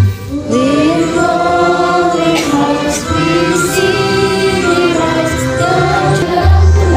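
Young girls' voices singing a song into microphones over an instrumental accompaniment with a heavy bass line. The sung line slides up into a held note about half a second in.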